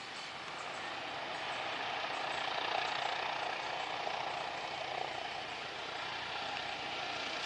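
Aircraft engine running: a steady rushing noise that swells about three seconds in and then eases slightly.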